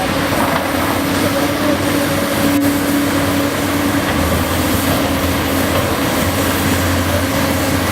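Cat 385BL hydraulic excavator working, its diesel engine and hydraulics running under load in a steady drone with a whine. A deeper rumble comes in about halfway through.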